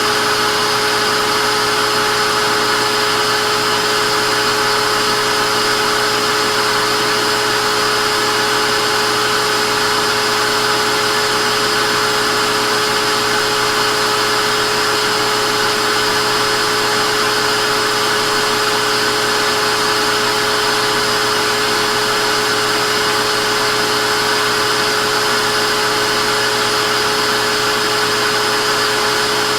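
Vacuum cleaner running steadily, a constant motor whine over the rush of air, with no change in pitch or level.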